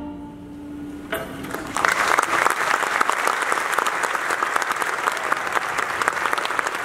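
The orchestra's final chord fades out, and about a second in audience applause starts, quickly filling into dense, steady clapping.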